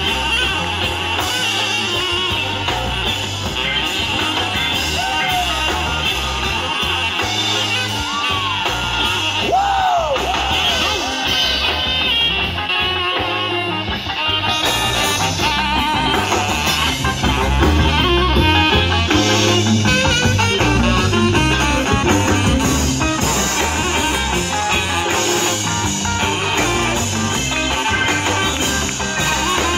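Live band playing, with a saxophone solo over electric guitars, bass and drum kit. A few swooping, bent notes come about a third of the way in.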